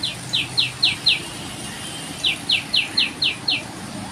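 A bird calling in rapid series of short, high, descending notes, about four a second. There are two runs with a pause of about a second between them.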